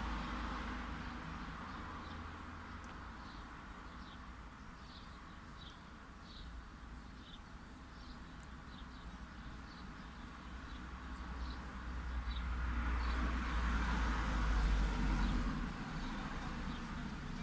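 Light road traffic: the noise of one passing vehicle fades over the first few seconds, and another builds to its loudest about fourteen seconds in, then fades. Between them a small bird chirps in a steady series of short, high chirps.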